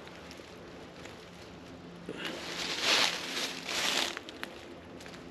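Footsteps crunching through dry fallen leaves, a short run of steps about two seconds in, over a faint steady low hum.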